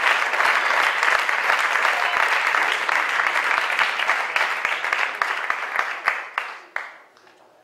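Audience applauding, a dense steady clapping that thins out to a few last separate claps and dies away about six to seven seconds in.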